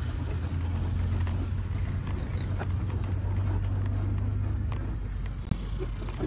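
Car driving slowly in traffic: a steady low engine and road rumble with faint street noise over it, easing a little near the end, and one sharp click about five and a half seconds in.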